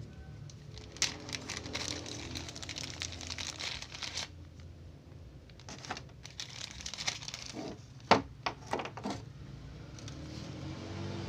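Packaging crinkling and rustling while a toy is unboxed, in two spells of handling with a few sharp clicks and knocks near the end of the second.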